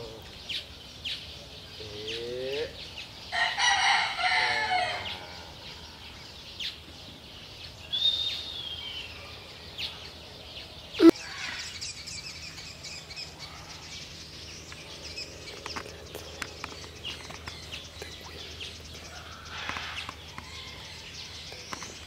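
A large fowl gives one loud call of about a second and a half, around four seconds in, with lower, shorter calls just before it. A falling chirp follows, then a single sharp click near the middle. The rest is faint background with scattered chirps.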